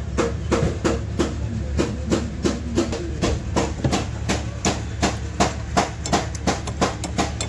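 Audi Q3 engine running with its timing cover off: a steady low hum under an even, rapid ticking, several times a second.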